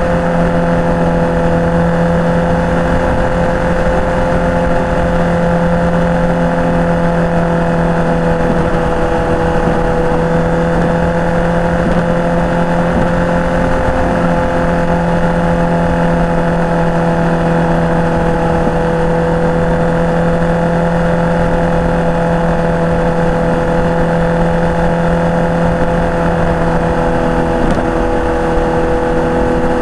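Sport motorcycle cruising at constant revs, its engine note holding one steady pitch under a continuous rush of wind and road noise.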